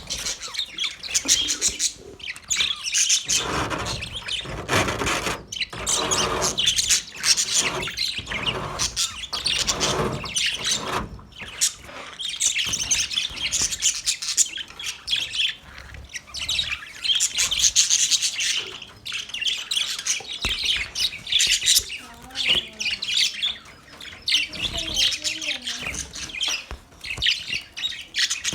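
Several male budgerigars chirping in a fast, continuous chatter of short high notes, with brief pauses.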